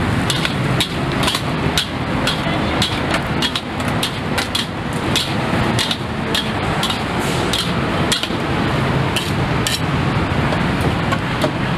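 Irregular metallic clanks of a metal spatula striking and scraping a wok as Pad Thai is stir-fried, a few strikes a second, over a steady low rumble.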